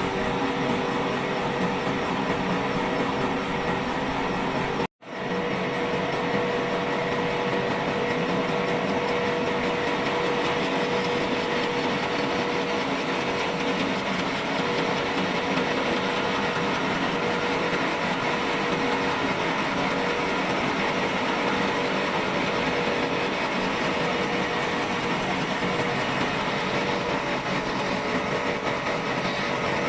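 Trolley sawmill saw running steadily while cutting dry wood: a continuous machine noise with a steady hum under it. It cuts out for a split second about five seconds in, then runs on unchanged.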